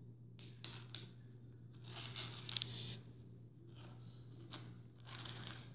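Rustling, scratchy handling noises with a few sharp clicks, loudest about two to three seconds in, over a steady low hum.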